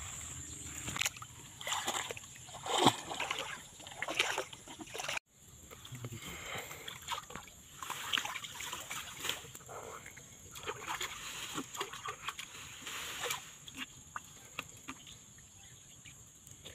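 Bare feet crunching and rustling through dry grass, then after a cut, water splashing and sloshing as a man wades and pulls a gill net up out of the water.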